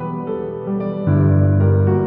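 Background music: soft, sad piano and keyboard, moving to a deeper, louder chord about a second in.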